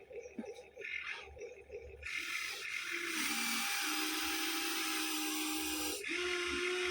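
Small electric motors of a Huina 1593 remote-control toy excavator whining as it works, uneven at first. About two seconds in, a louder steady whine sets in, its pitch shifting slightly as the motors change load.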